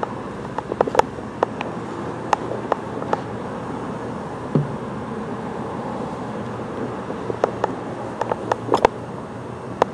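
Steady low hum of passing traffic and engines, with scattered sharp clicks and knocks from the body-worn camera and things being handled close to it.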